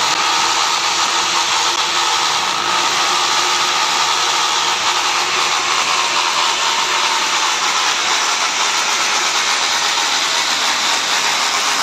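Corded electric drill running steadily at full speed while it bores into a masonry wall, a constant motor whine over a grinding hiss.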